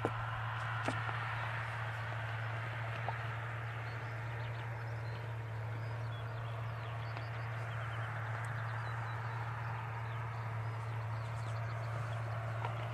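Tractor's diesel engine droning steadily in the distance while it pulls a strip-till cultivator, with a few faint bird chirps.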